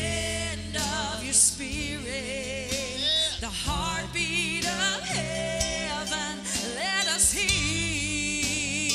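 Live gospel worship music: voices singing long held notes with heavy vibrato over sustained low chords, with two brief bright accents about one and a half seconds in and near the end.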